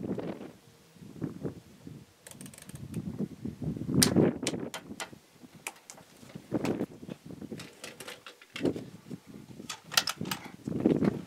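Irregular clicks and knocks of a big-bore PCP air rifle being handled in a bench rest.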